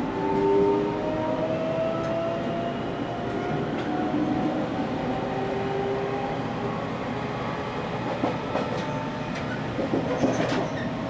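Toshiba GTO-thyristor VVVF inverter and traction motors of a JR Kyushu 813 series 200 subseries electric train whining under power, several tones rising slowly in pitch as the train accelerates. Wheels click and clatter over the rails near the end.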